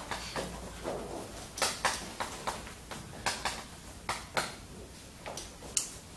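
Chalk tapping and scraping on a blackboard as characters are written: a string of short, sharp clicks at uneven intervals.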